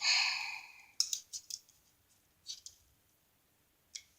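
A pair of scissors that has come apart: a brief metallic ring that dies away within about a second, then a few light clicks as the loose pieces are handled.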